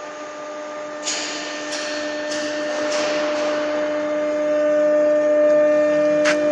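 Kramatorsk 1A665 heavy screw-cutting lathe running: a steady motor and gear whine that grows gradually louder. A run of about five sharp clicks, roughly every half second, starts about a second in, and one more sharp click comes near the end.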